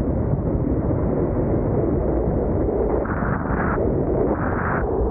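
Strong wind buffeting the microphone over steady road and tyre noise from a vehicle driving on a wet highway in a storm, with two brief surges of brighter hiss about three and four and a half seconds in.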